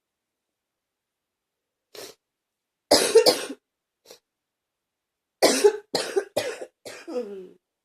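A person coughing in fits. A faint cough comes first, then a loud double cough about three seconds in, then a run of four coughs from about five and a half seconds, the last trailing off into a falling vocal sound. This is a lingering cough that is still hanging on.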